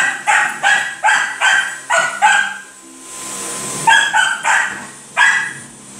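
A dog barking in a quick run, about three barks a second, then after a pause three more barks spaced apart near the end.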